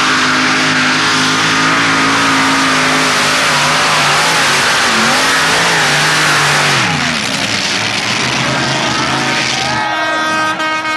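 Multi-engine supercharged modified pulling tractor at full throttle under load, the engine note holding steady, then wavering, then falling sharply about seven seconds in as the pull comes to an end. Near the end a horn starts to sound.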